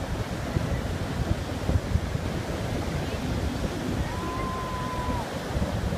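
Sea surf breaking and washing in the shallows, with wind buffeting the microphone. About four seconds in, a thin steady high tone sounds for about a second.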